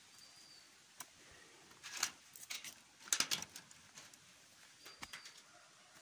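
Footsteps crunching on a dry, stony path, as a few irregular crunches with a quick cluster a little after three seconds in. A bird gives two brief, faint, high chirps.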